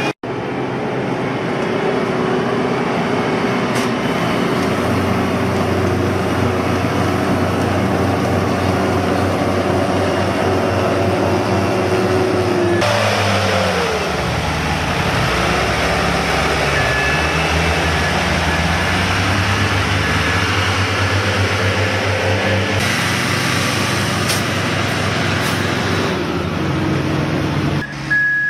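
Heavy road-construction machinery running with a steady engine drone that changes abruptly twice. Partway through, an engine note drops and climbs back, and faint reversing beeps sound in the middle.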